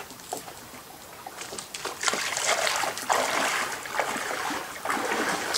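Water splashing and sloshing, with a few small drips and clicks at first and then a louder, irregular run of splashing from about two seconds in.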